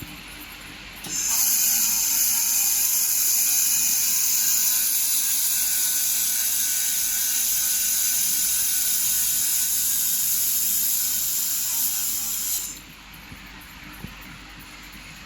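1500 W fiber laser welding machine with a Qilin welding head firing: a loud, steady high hiss with a few faint steady tones. It starts suddenly about a second in and cuts off suddenly about 13 seconds in, leaving a quieter steady machine hum.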